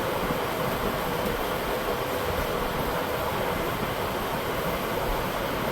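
Shop fan blowing steadily, a constant rushing noise that covers the room.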